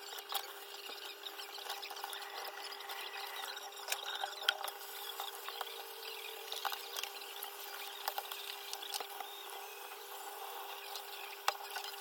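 Kitchen handling noises from food preparation: soft scattered taps, clicks and rubbing, over a faint steady hum.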